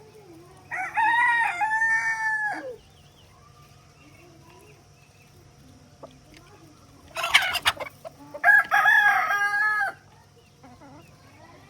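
Rooster crowing twice, two long cock-a-doodle-doo calls several seconds apart, with soft clucking between them. A short rustling burst comes just before the second crow.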